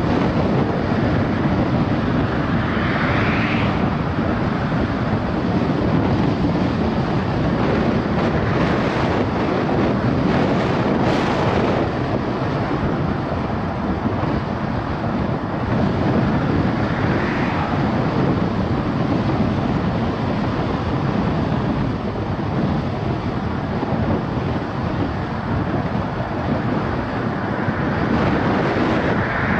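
Steady road and wind noise of a car driving at speed, with a few brief swells of hiss.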